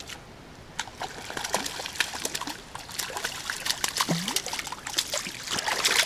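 Water splashing and dripping in irregular bursts, starting about a second in, as a hooked crucian carp is pulled thrashing from a small pool.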